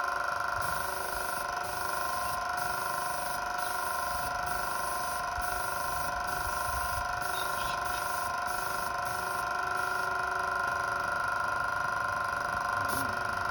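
Airless paint sprayer running with a steady whine, and a high hiss of spray that pulses about once a second, stopping about ten seconds in.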